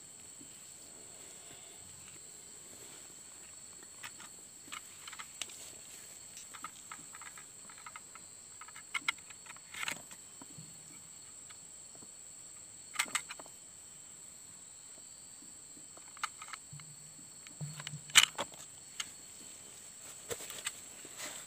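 Steady high-pitched insect drone, with scattered clicks and rustles as a jackfruit seedling in a polybag is handled and its shoot cut off; the sharpest click comes about 18 seconds in.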